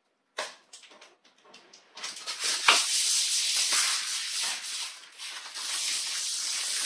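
Clear plastic protective wrap crinkling and rustling as it is cut and pulled off a resin 3D printer. A few short clicks of the snips come first, then from about two seconds in a steady crinkling noise, with one sharp snap soon after it starts.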